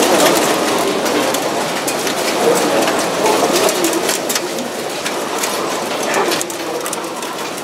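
A flock of caged laying hens calling together in a steady, overlapping chorus, with scattered sharp clicks throughout.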